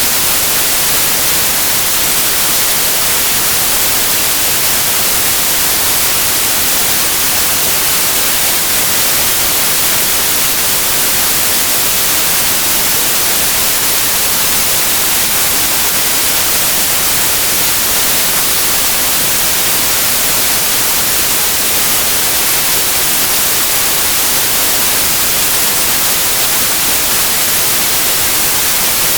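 Steady, loud white noise: an even hiss with no tone, rhythm or change, brightest in the high frequencies.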